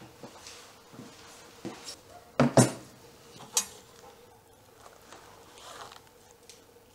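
A few sharp metal clinks and knocks. The loudest are a close pair about two and a half seconds in and a single one a second later, as steel kebab skewers are set down on a wooden table.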